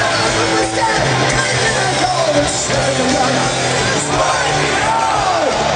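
Live rock concert, recorded from inside the crowd: the band playing loud with a singer's voice over it, and yells from the audience.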